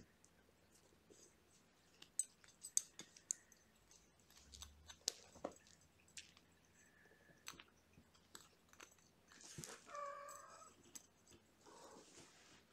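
Kittens at play: faint, scattered light clicks and scuffs as they pounce on a spring-mouse toy on fleece bedding. About ten seconds in comes a short kitten mew.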